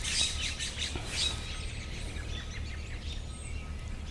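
Small birds chirping and calling, with a quick run of rapid high chatter in the first second or so and a few thin chirps later, over a steady low rumble.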